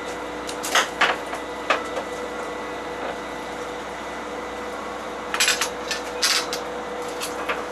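Steady hum of a fishing boat's engine, overlaid by a series of sharp wooden knocks and clatters as fishing gear and a gaff pole strike the deck and rail, several of them bunched together in the second half.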